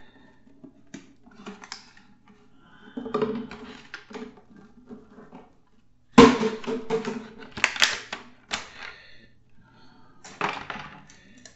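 Handling noise from a toy sonic screwdriver and its plastic and card packaging: several bursts of clicks, knocks and rustling. The loudest run starts with a sharp knock about six seconds in.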